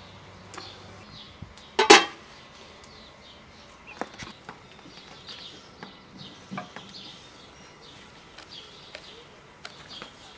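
Metal cooking pots clanging: a loud double clang with a short ring about two seconds in, then a few lighter knocks of pot and lid.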